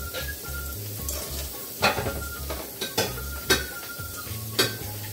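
Pieces of tortilla frying in hot oil in a frying pan, sizzling steadily, while a fork turns them over. The fork clicks against the pan four times.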